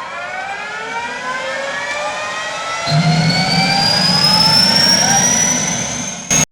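An engine speeding up, its pitch rising steadily throughout, growing louder about three seconds in, then cutting off abruptly.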